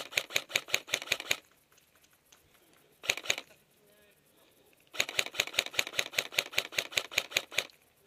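Airsoft electric gun firing on full auto, about six shots a second. One burst stops after about a second and a half, a short burst comes about three seconds in, and a longer burst runs from about five seconds until near the end.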